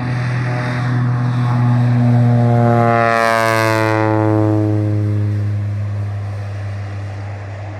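Air Tractor 402B crop-duster's Pratt & Whitney PT6A turboprop passing low overhead: the engine and propeller drone swells to a peak a few seconds in, drops in pitch as the plane goes by, and then fades.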